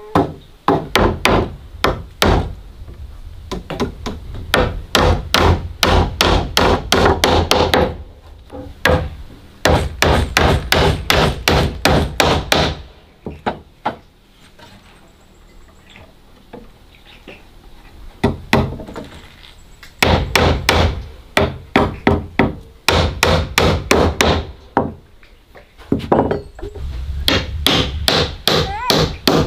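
A hammer striking nails into wooden floor planks. The strikes come in quick runs, several a second, with pauses between runs and a longer pause midway.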